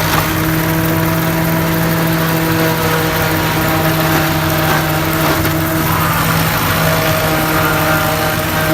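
Tractor-driven silage chopper running steadily, the tractor engine and the chopper's drive humming at a constant pitch under a dense mechanical noise.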